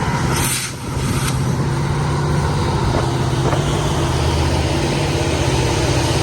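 EMD SD70ACe diesel-electric locomotives, the train's mid-train distributed-power units, running under power as they pass, a steady low engine drone. A brief hiss comes about half a second in.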